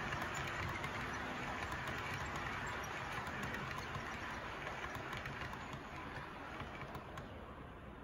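Rake of loaded model coal hopper wagons rolling along model railway track: a steady running rumble with light clicks from the wheels, fading gently in the second half as the train draws away.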